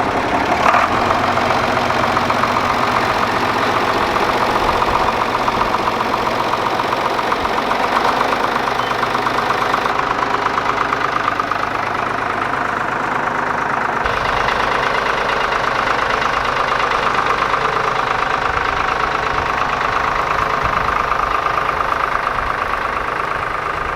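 John Deere 4040 tractor's six-cylinder diesel engine running steadily, its sound changing about fourteen seconds in.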